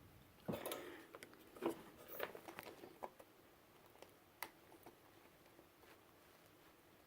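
Faint clicks, taps and rustles of wires and small tools being handled during soldering, a few separate small knocks in the first few seconds, then a single tick and quiet.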